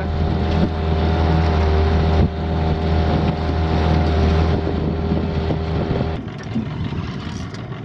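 Yamaha outboard motor running steadily with a low, even hum. About six seconds in the hum cuts off abruptly, leaving a softer wash of water and wind noise.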